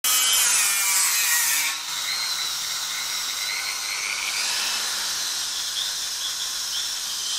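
Electric straight grinder spinning at high speed with a high-pitched whine and hiss. It is louder for about the first two seconds, then runs on at a slightly lower, steady level.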